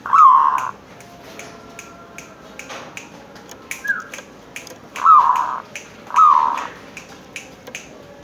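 Zebra dove (perkutut) calling: loud short cooing phrases at the start, about five seconds in and about six seconds in, each opening on a falling note, with a shorter higher note just before four seconds. Faint sharp ticks repeat in the background.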